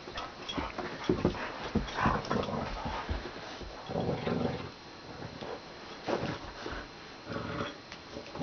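Dog growling in short bursts while playing tug-of-war over a plush toy, with scuffling and knocks in between.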